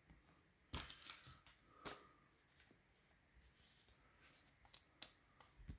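Faint rustling and light clicks of Pokémon trading cards being handled, in short scattered bursts.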